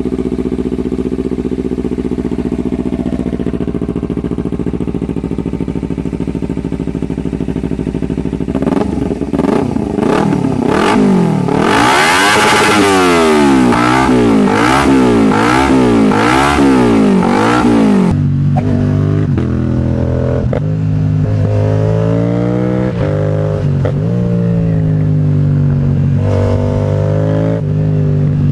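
Twin-cylinder motorcycle engine idling steadily, then revved up and down repeatedly, about once a second. About two-thirds of the way in it cuts abruptly to a twin running at a lower pitch with a few short throttle blips.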